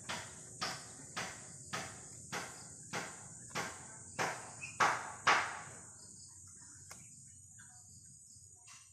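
Bolo knife shaving the rind off a young jackfruit in quick regular strokes, about ten of them at under two a second, the last few the loudest, stopping about five and a half seconds in. A steady high insect buzz runs behind.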